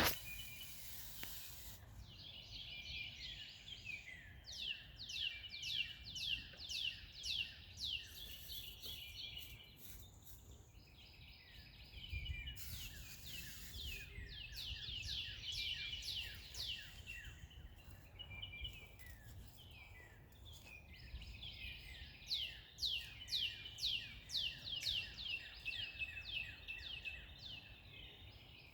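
Songbirds singing outdoors: three bouts of quick, repeated down-slurred whistled notes, about three a second, with softer chirps between them. A low, steady background rumble lies underneath.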